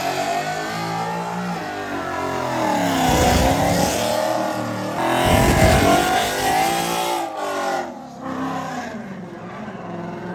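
Ford Mustang doing a burnout: the engine revs hard while the rear tyres spin, its pitch dropping and climbing again twice. The revs ease off over the last couple of seconds.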